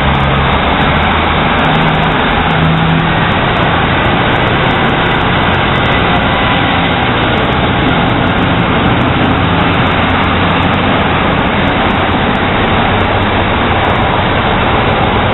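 Class 150 Sprinter diesel multiple unit pulling out of the station, its underfloor diesel engines droning as it accelerates away. The engine note rises over the first few seconds, then fades as the train recedes. A constant loud rush of wind on the microphone sits over everything.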